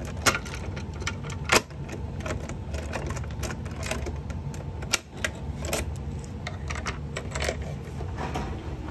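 Irregular clicks, taps and light rattles of small hard objects being handled, the sharpest about a third of a second and a second and a half in, over a steady low hum.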